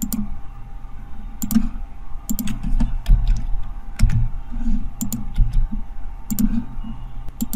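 Computer mouse clicking about a dozen times, several clicks coming in quick pairs, over a low background rumble and a faint steady hum.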